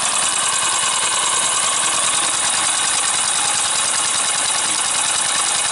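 Small slide-valve engine converted from a reciprocating water pump, running fast and steadily on compressed air at about 40 psi: a continuous hiss of exhaust pulses with mechanical clatter, in a rapid even rhythm.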